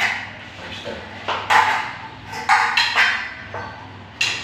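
Hand tin snips cutting a steel metal stud: a series of sharp metallic snips and clanks with a short ring. Near the end the stud clatters as it is set down.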